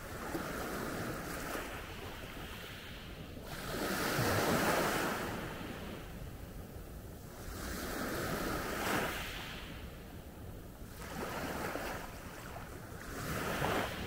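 Small Adriatic sea waves breaking and washing up a pebble beach, one swell after another every two to four seconds, the strongest about four seconds in.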